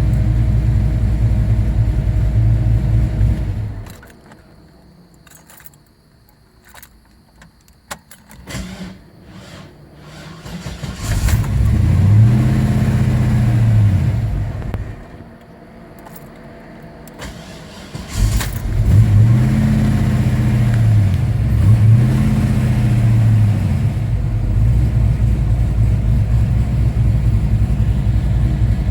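Chevelle engine with Holley HP EFI running, then shut off; after clicks and a restart attempt that revs up and fades away, it catches suddenly, revs up and down twice and settles into a steady idle. A hard start, which the owner puts down to voltage drop during cranking.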